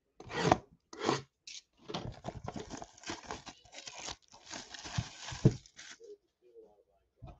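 Clear plastic shrink wrap being slit with a box cutter and torn off a cardboard box: two short ripping strokes, then a few seconds of continuous crinkling and tearing that stops about a second before the end.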